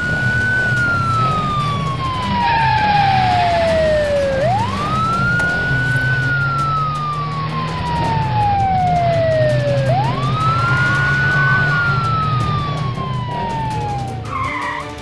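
Police siren in wail mode, going through three cycles, each rising quickly and then falling slowly over about five seconds, over background music.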